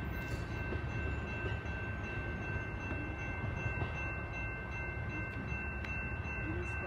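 EXO commuter train pulling away down the track, a steady low rumble. A steady high-pitched ringing tone runs over it.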